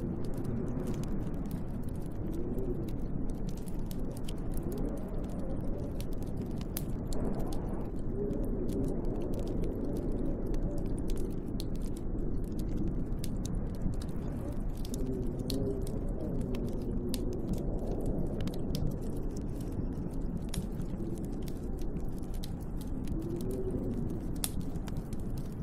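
Snowstorm wind blowing steadily, with gusts that howl rising and falling in pitch, over the small scattered crackles and pops of a wood fire in a fireplace.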